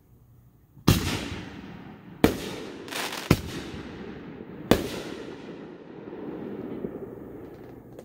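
Aerial firework shells bursting: several sharp bangs a second or so apart, each trailing off in a long rumbling echo.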